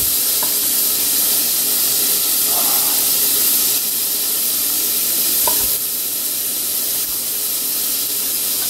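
Steady sizzling of onions, garlic and carrots frying in a pan, with a couple of light knife taps on a wooden cutting board as beef is diced.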